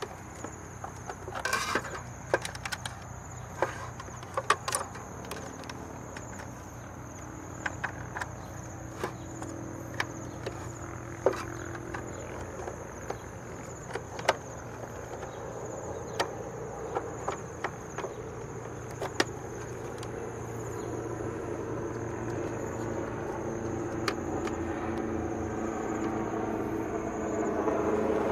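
Crickets chirping steadily, with scattered sharp clicks and knocks. A low motor drone grows louder through the second half, like a vehicle approaching.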